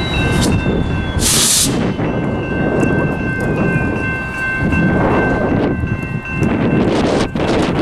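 A BNSF diesel locomotive rumbles with a steady high-pitched whine over it, one tone of which slides slowly lower. There is a short sharp hiss about a second and a half in, and a few knocks near the end.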